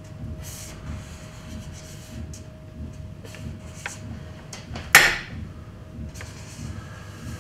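Felt-tip marker drawing on a paper flipchart sheet: short rubbing and squeaking strokes of the tip across the paper, with one sharp knock about five seconds in.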